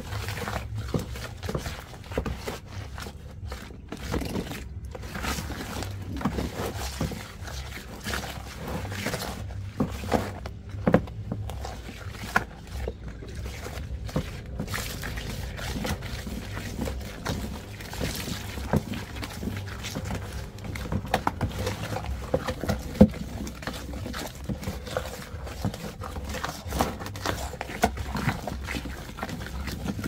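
Flat wooden stick stirring and mashing thick wet soap paste in a plastic basin: irregular squelches and scrapes with short knocks of the stick against the basin, over a steady low rumble.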